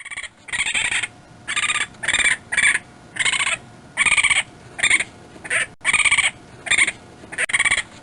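An animal giving about a dozen short, harsh calls in steady succession, each about half a second long.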